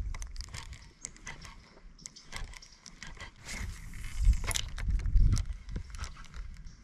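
Spinning reel and rod being worked through a cast and retrieve: scattered light clicks and ticks throughout, with heavier low rumbling bumps about four and five seconds in.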